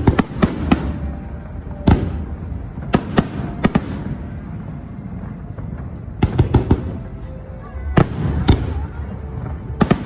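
Aerial fireworks shells bursting overhead in irregular volleys of sharp bangs, several close together at a time.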